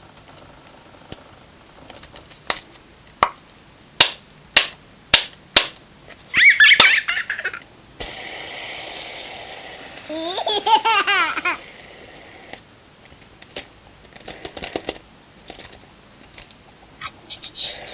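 A string of sharp clicks or pops, then two bursts of high, warbling laughter, with a steady hiss through the middle and a fast run of clicks near the end.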